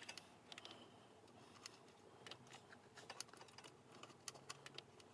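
Faint, irregular small clicks and ticks of a fine screwdriver working at the M.2 standoff screw on a PC motherboard.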